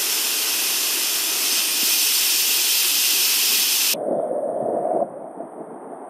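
Waterfall water pouring down right onto the microphone: a loud, dense rush. About four seconds in, the sound abruptly goes muffled and dull, then drops quieter.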